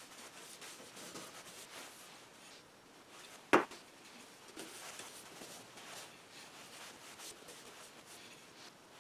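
Faint rubbing of a paintbrush stroking paint along a thin wooden slat, with one sharp wooden knock about three and a half seconds in.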